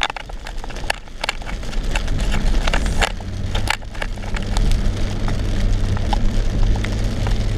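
Car driving in the rain, heard from inside the cabin: the engine hums, settling into a steady low drone about three seconds in, under scattered sharp clicks and taps while the windscreen wipers sweep.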